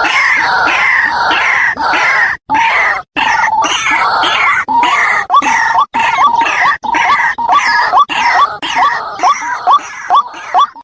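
White-breasted waterhen (ruak-ruak) calling: a loud run of harsh, repeated croaking notes, overlapping at first, then settling into a steady string of short rising notes about three a second.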